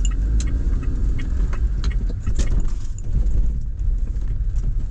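Kei van driving: a steady low rumble of road and engine, with scattered light rattling clicks.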